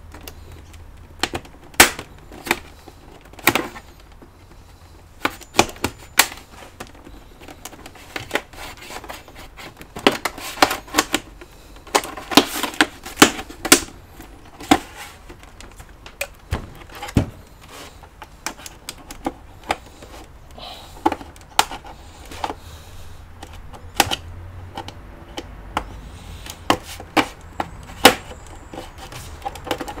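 Plastic snap clips on an HP 20-c all-in-one's rear cover clicking and popping as the screwless cover is flexed and pried loose by hand. The clicks come irregularly, singly and in quick clusters, with a dense run a little before the middle.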